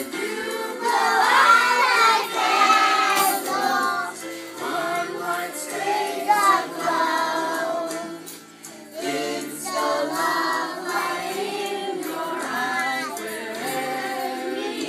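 Group of young children singing a song together, with a brief lull just past halfway.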